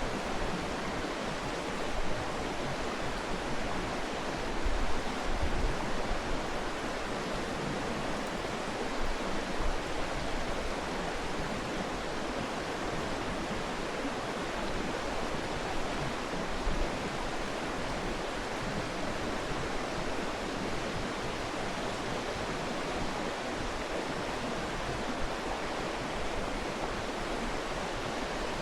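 Mountain stream rushing steadily, a constant even wash of flowing water, with a few brief low rumbles in the first ten seconds and one more a little later.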